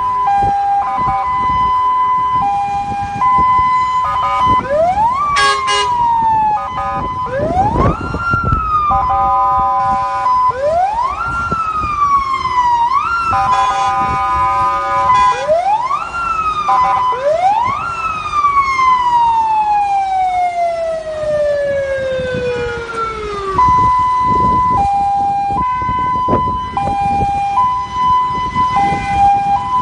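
Ambulance siren switching between modes: a two-tone hi-lo alternation, then a run of wail sweeps that each rise quickly and fall slowly, the last one drawn out over about six seconds, then back to hi-lo near the end. Vehicle engine and road noise run underneath.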